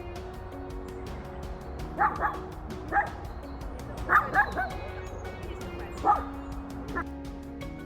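A dog barking in short single barks and quick runs of two or three, about eight barks in all, over background music with long held notes.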